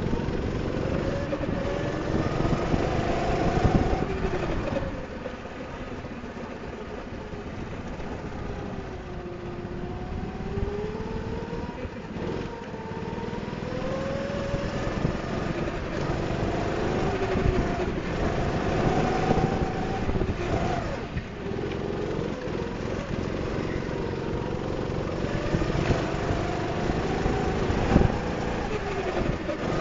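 Go-kart engine heard on board, its pitch rising and falling again and again as the kart accelerates and slows through corners, over steady wind and tyre noise. A sharp knock comes near the end.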